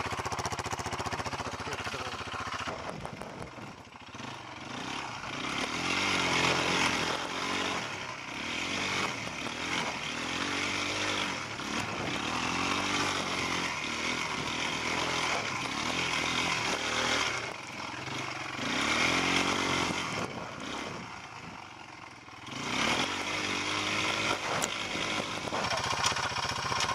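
Quad bike (ATV) engine revving up and down under changing throttle while riding, its pitch rising and falling over and over. It drops off briefly about four seconds in and again a little past twenty seconds in, then picks up again.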